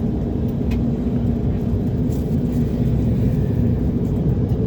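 Cabin noise of an Embraer 190 airliner with its GE CF34 jet engines running on the ground: a steady low rumble with a steady hum over it.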